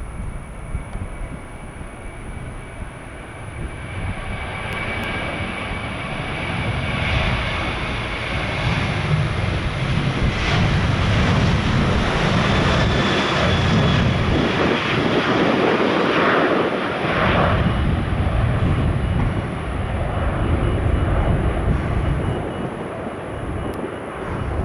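Jet airliner's engines spooling up and running at high power for takeoff, swelling over the first several seconds, loudest through the middle, then easing off as it moves away, with a faint high whine over a low, fluttering rumble.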